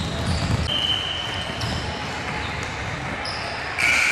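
Basketballs being dribbled on a hardwood gym floor, the bounces strongest in the first second. A loud, steady high-pitched sound cuts in just before the end.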